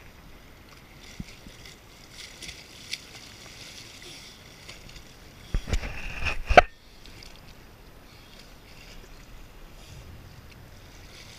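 Lake water sloshing and lapping against a jet ski's hull, with a short burst of splashing and hard knocks a little past halfway as a swimmer grabs the hull to climb back aboard.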